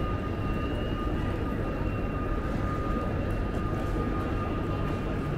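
Railway station concourse ambience: a steady low rumble with a constant high-pitched whine running over it, and faint scattered clicks.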